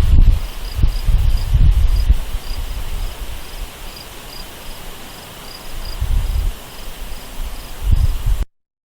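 An insect chirping in a steady rhythm of about three short high chirps a second, with gusts of wind rumbling on the microphone. The sound cuts off abruptly near the end.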